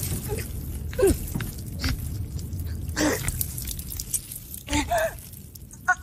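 Several short, strained vocal sounds, gasps and groans, some falling in pitch, over a steady low rumble.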